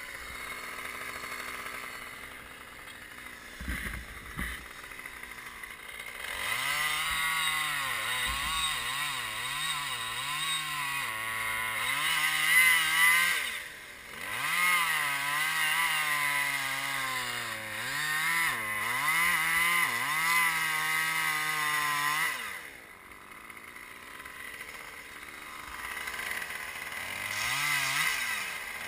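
Two-stroke chainsaw starting up about six seconds in, its engine speed rising and falling as it cuts into the tree trunk. It eases off briefly twice. Before it, a couple of knocks.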